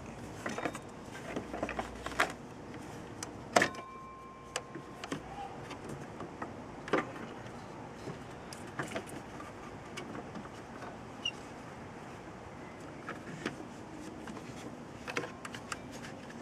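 Scattered clicks, knocks and rubbing as a serpentine belt is worked by hand onto the pulleys of a Ford Duratec 3.0L V6, with a breaker bar holding the tensioner back. One sharp click with a short ring comes about three and a half seconds in.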